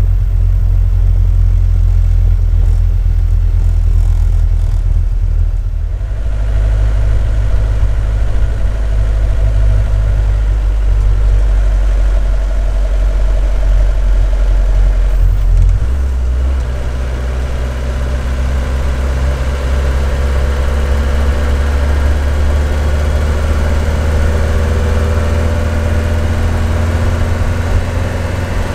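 Diesel engine of a 1977 Mercedes 206D (Hanomag-Henschel) van running under way, heard from inside the cab with a heavy low drone and road noise. The drone changes pitch about six seconds in and again around sixteen seconds in, and the engine note climbs slowly near the end.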